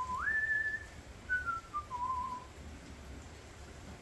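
A person whistling a short tune: a note that slides up and is held for about half a second, then a few shorter notes stepping back down.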